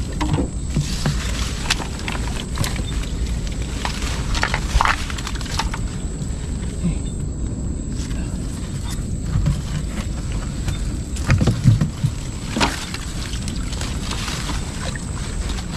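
Water sloshing and splashing with irregular knocks as a fish trap and its catch are handled in swamp water, over a steady low rumble; the knocks bunch up and grow louder a little past the middle.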